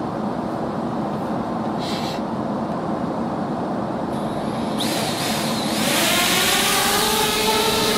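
Steady hum of an airliner cabin, then about five seconds in the motors of a small DJI Spark quadcopter start and its propellers spin up: a rising whine that grows louder.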